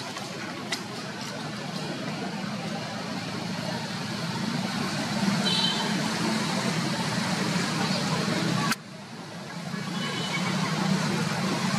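Steady rumble of road traffic, swelling slowly, dropping off abruptly about nine seconds in and building back up.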